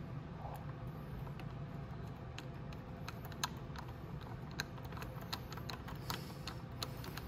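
Irregular light metallic clicks and taps of a hex key working a small Allen bolt that holds a rubber splash flap under the rear fender, growing louder and more frequent about halfway through, over a steady low hum.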